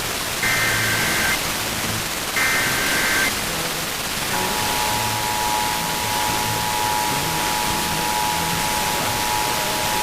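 Emergency Alert System test signal off a radio broadcast over a steady static hiss. Two short warbling bursts of the SAME header's digital data follow each other, and about four seconds in the steady two-tone EAS attention signal comes on and holds.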